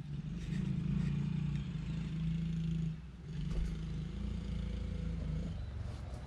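A small motor-driven tool running with a steady hum, stopping briefly about three seconds in, then running again until shortly before the end.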